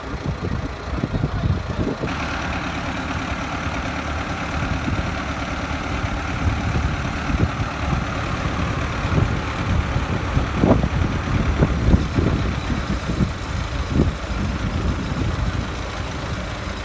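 Farm tractor's diesel engine running under load as it drives through deep mud, getting louder about two seconds in. A few short low thumps come near the middle.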